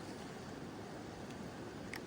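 Carpathian mountain river flowing in a steady rush, with gentle rain falling. A single faint tick near the end.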